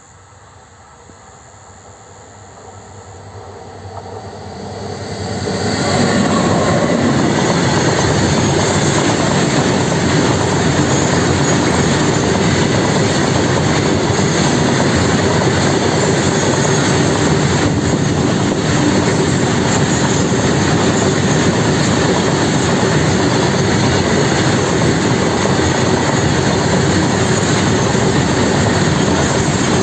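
Train noise growing louder over about six seconds, then a loud, steady rush of train wheels on the rails.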